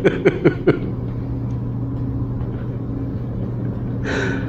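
A steady low hum, typical of a building's ventilation, with a short hiss about four seconds in. In the first second a man laughs briefly.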